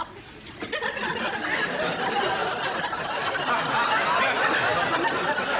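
Studio audience laughing, swelling up about half a second in and carrying on steadily.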